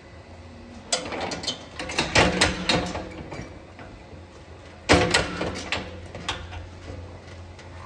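Metal knocks and rattles from a steel hoof-trimming chute being worked: a cluster about a second in, then one loud bang with rattling about five seconds in, over a steady low hum.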